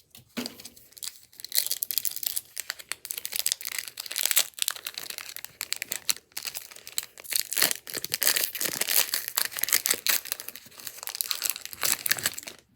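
Foil booster-pack wrapper crinkling and being torn open, a dense run of quick irregular crackles with a few short pauses.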